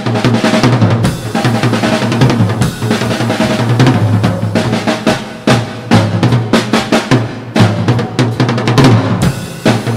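Drum kit played solo: rapid strikes and fills on snare and bass drum, with cymbals washing over them.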